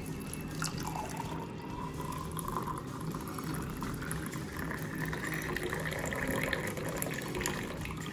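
Tea poured in a steady stream from a metal jug into a glass tumbler, the tone of the filling glass rising as it fills.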